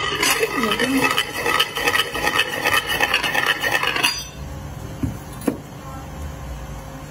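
Flat metal disc pressed and turned on rice grains in a porcelain jar, a dense gritty scraping of grains against metal and ceramic. The scraping stops suddenly about four seconds in, and two light knocks follow about a second apart.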